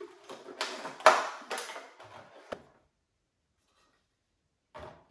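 Packaging being opened by hand: a run of rustling, scraping handling noises and clicks over about three seconds, with a sharp knock about a second in. Then silence, and a short rustle near the end.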